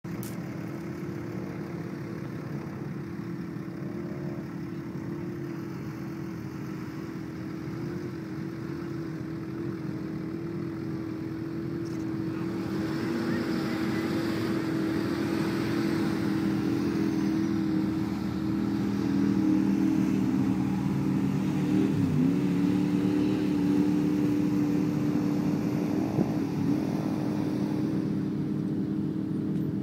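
Pickup truck engines, a 2011 Dodge Ram's among them, running steadily at high revs under heavy load as the two trucks strain against each other on a tow strap. The engine note gets louder from about halfway through, with a brief dip in pitch about three-quarters of the way through.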